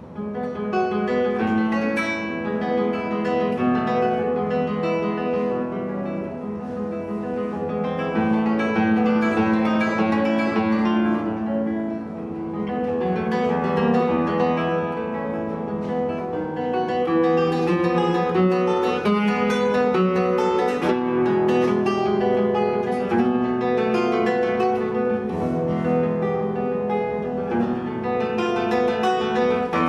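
Solo acoustic guitar music: plucked melody notes over chords, coming in louder right at the start.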